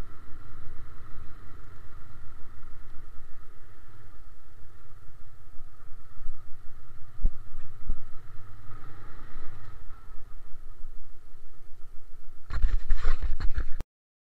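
Motorcycle engine and road noise while riding, muffled by the camera sealed inside its case, with two sharp knocks a little past halfway. Near the end a loud burst of rattling and knocking, then the sound cuts off abruptly.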